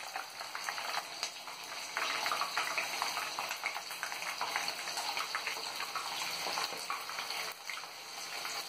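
Batter-coated chicken lollipops deep-frying in hot oil over a high flame: a steady bubbling sizzle, scattered with many small crackles and pops.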